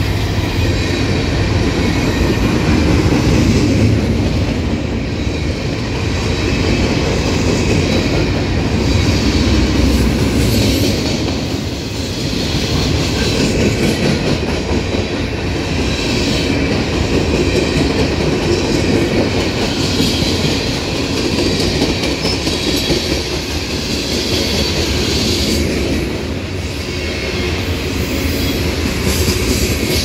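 CSX freight train's cars, open gondolas and then covered hoppers, rolling steadily past close by, steel wheels rumbling and clacking on the rails.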